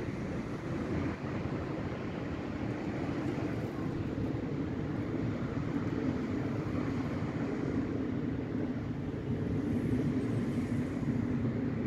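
Steady rumble of road traffic passing on the street below, growing slightly louder toward the end.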